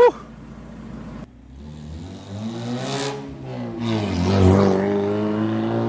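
Loud Suzuki G13B 1.3-litre four-cylinder engine in a mid-engined Swift, accelerating with its note rising. The pitch dips briefly about three seconds in, then rises again and holds at high revs.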